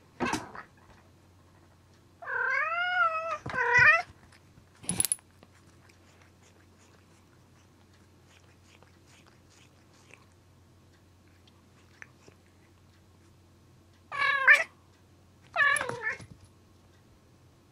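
Domestic cat meowing: two drawn-out meows a couple of seconds in, the first about a second long, then two shorter meows near the end.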